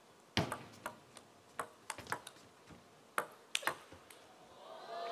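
Table tennis rally: the plastic ball clicks off rackets and table about a dozen times at an uneven, quickening pace. Crowd noise swells near the end as the point is won.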